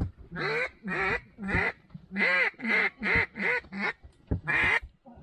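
Mallard duck call blown in a series of loud, raspy hen quacks: three spaced quacks, then five quicker ones, then a longer one, calling to the remaining ducks.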